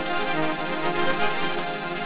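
Cartoon soundtrack heavily processed with a stacked-copies 'flutes' effect: a dense, steady wash of many layered tones, heard as music, with the bass cut away.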